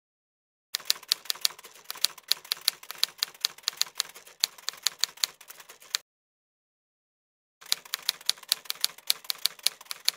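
Typewriter sound effect: rapid key clacks, several a second, in two runs with a pause of about a second and a half between them, the first starting about a second in.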